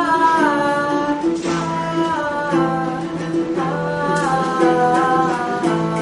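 A woman singing wordless, gliding notes over a plucked and strummed acoustic string accompaniment, the slow opening of a devotional song.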